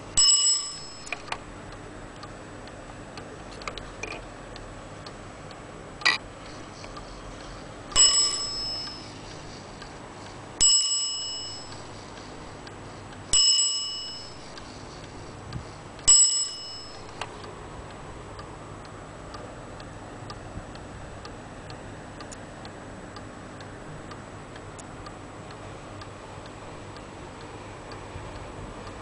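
Zaandam-style weight-driven wall clock ticking steadily while its hammer strikes the bell on top five times, each stroke ringing out and dying away. The first strike comes right at the start and the last four come evenly about 2.7 seconds apart; after that only the ticking goes on.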